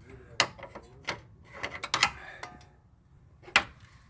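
Sharp metallic clicks and knocks at irregular intervals, with a short scrape around the middle and the loudest knock near the end, as a binding front subframe (engine cradle) is worked loose with tools.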